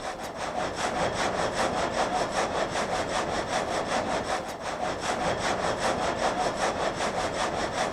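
Water-driven vertical frame saw cutting a log, its reciprocating blade rasping through the wood in a steady, even rhythm of strokes.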